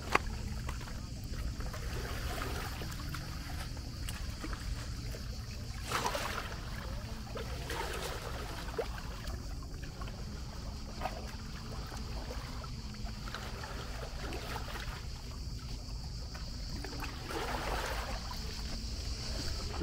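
Seaside ambience with a constant low rumble, a steady high buzz of cicadas, and scattered faint voices and small sounds, with two louder swishes, about six seconds in and near the end.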